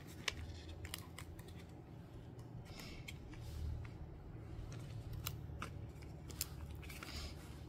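Faint handling of paper and cardboard: scattered light clicks and a couple of short rustles as a kraft card piece and notebook refills are moved about.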